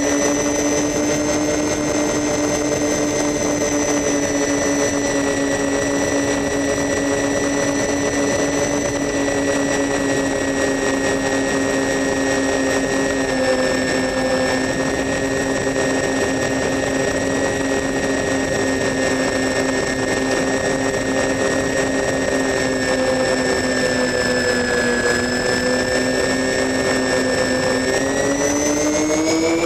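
Radio-controlled model airplane's motor and propeller, heard from on board: a steady droning whine over rushing air. The pitch sags a little about three-quarters of the way through, then rises near the end as the throttle comes up.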